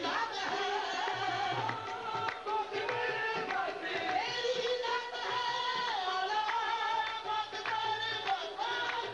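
Sufi devotional song: a sung melody with long, gliding held notes over steady drum beats.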